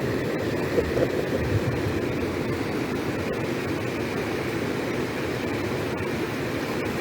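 Steady rushing roar of a fast floodwater current pouring across a washed-out road.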